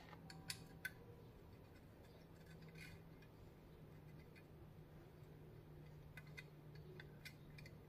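Faint, scattered light clicks of a carburettor float and its pivot pin being handled and fitted into an Edelbrock 1406 carburettor, over a faint steady low hum.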